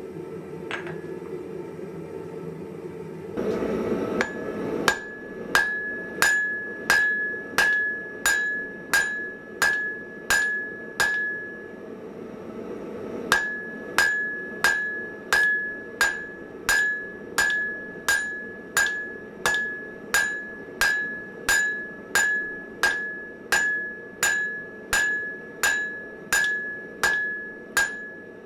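Blacksmith's hammer striking hot mild steel on an anvil in a steady rhythm of about two blows a second, each blow with a clear ring. It starts about four seconds in and pauses briefly about halfway through before going on.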